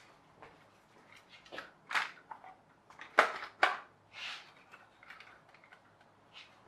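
Hard plastic toy car body shell being handled and set onto a radio-control monster-truck chassis: a handful of light plastic clicks and knocks, the two loudest close together about three seconds in.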